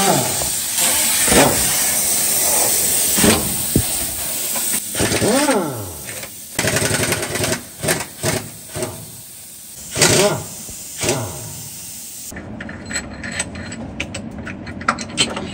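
Impact wrench working the main bearing cap bolts on a seized Volvo D13C truck engine. A steady hiss with rising and falling whirring for about six seconds, then a run of short bursts of hammering.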